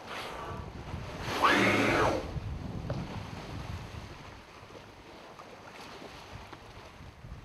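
Humpback whale blowing at the surface: one loud, breathy whoosh about a second and a half in, then the steady wash of water and wind on the microphone.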